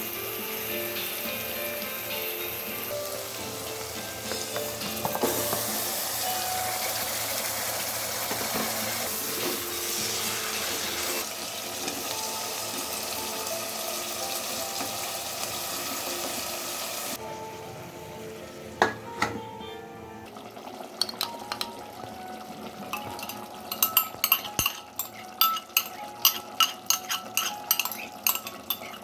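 Food frying in hot oil in a pot with a steady sizzle for a bit more than half the time. The sizzle then falls away, and a spoon clacks and scrapes against the pot many times in quick succession near the end as the food is stirred.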